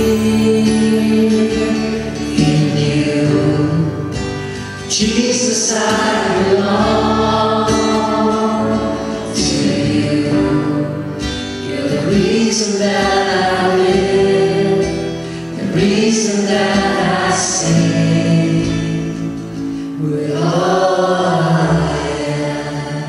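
Live worship song: several voices singing together in phrases over strummed acoustic guitar.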